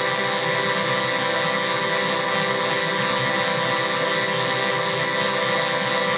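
Steady electronic drone from a vocoder-processed sound effect: many held tones stacked together with a hiss on top, unchanging throughout.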